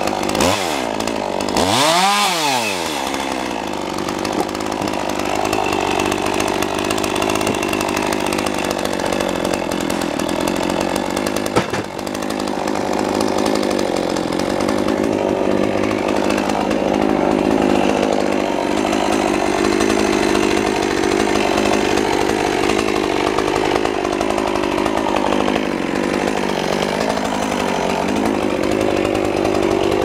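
Stihl chainsaw revving up and back down about two seconds in, then running steadily with its pitch dipping and wavering as it cuts through sawmill slab wood.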